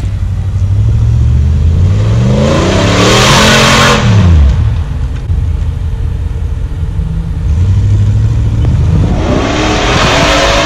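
Off-road 4WD vehicle's engine running, revving up and dropping back twice, about three seconds in and again near the end.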